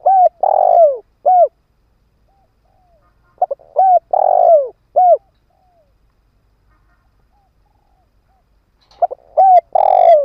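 Spotted dove cooing its calling song: three phrases about four seconds apart. Each phrase is a few short coos, then one long loud coo that falls in pitch, then a short closing note. Fainter short coos sound between the phrases.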